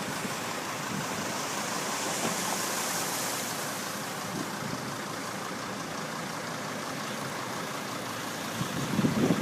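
Cars driving slowly through shallow floodwater on a parking lot, tyres hissing and swishing through the water over a low engine sound, with a swell of hiss about two to three seconds in.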